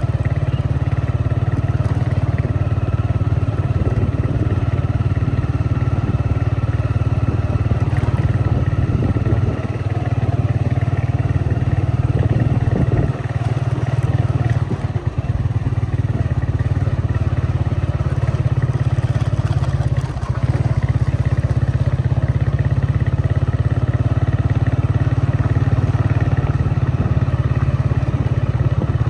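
A vehicle engine running at a steady drone, with road noise and a few brief dips in level.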